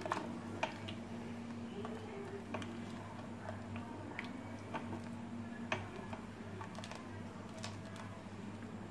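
Wooden spatula stirring wet khichuri in a metal pot, knocking sharply against the pot's side at irregular moments about once a second, over a steady low hum.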